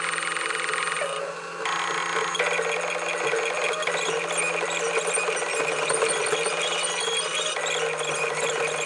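Background music with bright, chiming tones, dipping briefly a little over a second in.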